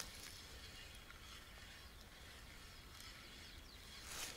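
Near silence: faint outdoor background, with a few faint high chirps around the middle.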